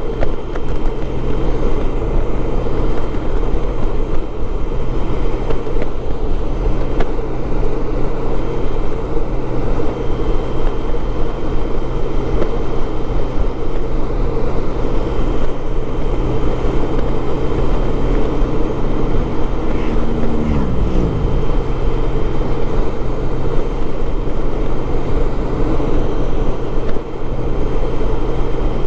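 Honda Goldwing motorcycle riding at road speed: a steady engine hum under continuous wind rush. About twenty seconds in, a brief tone falls in pitch.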